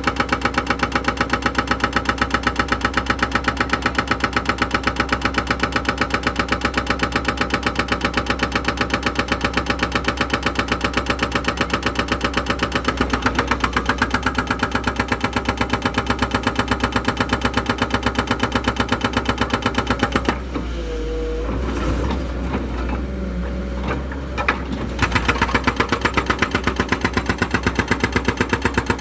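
An engine running with a steady, rapid beat. About twenty seconds in, the beat gives way for some four seconds to a lower, uneven rumble, then returns.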